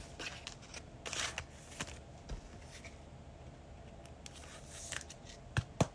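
Faint handling of trading cards: cards sliding and flicking against one another, with soft scattered clicks and a sharper tap near the end.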